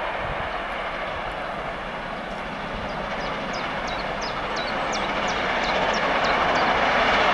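Two Great Western 4-6-0 steam locomotives, Hall class 4965 Rood Ashton Hall and Castle class 5043 Earl of Mount Edgcumbe, double-heading and working hard up a climb. Their exhaust is a steady, dense roar with no clear beat, growing louder from about halfway through as they approach.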